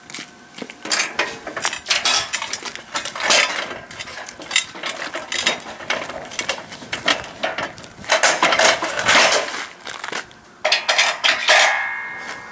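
Aluminum boat hoist frame parts clanking and clinking against each other as they are handled and fitted together, a busy run of sharp metallic knocks with a short metallic ring near the end.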